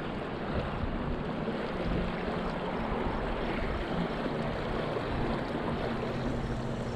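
Creek water running steadily, a continuous even rush.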